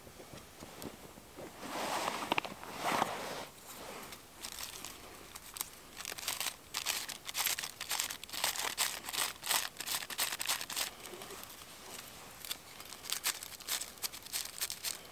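Dry birch bark crinkling in the hands, then scraped with a knife blade in many quick rasping strokes, shaving it into fine tinder for lighting a fire.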